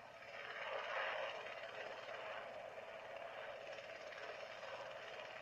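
Helicopter flying overhead, a steady rushing engine and rotor noise that swells about a second in and then holds.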